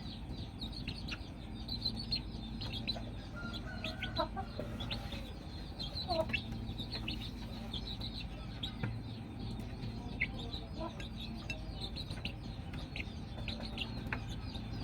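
Chickens clucking and chirping steadily, with many short high calls and a few falling clucks, while they feed on noodles.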